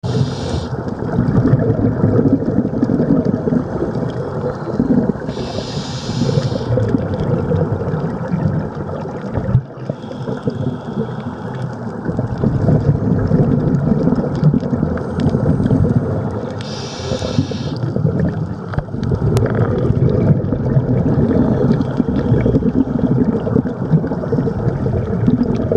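Underwater sound heard through a camera housing: a steady low rumble of water, broken every several seconds by a short hissing rush of bubbles, a scuba diver's exhalations through the regulator.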